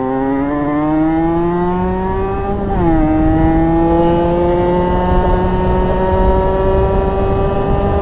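Rieju RS2 50's 50cc two-stroke engine with a custom exhaust accelerating hard. The pitch climbs through one gear, drops sharply with an upshift a little under three seconds in, then climbs slowly again through the next gear, with wind rumble on the microphone.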